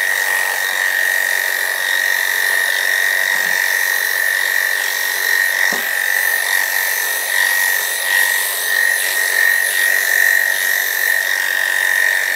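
Electric dog-grooming clippers running with a steady, high-pitched hum while shaving through a standard poodle's coat.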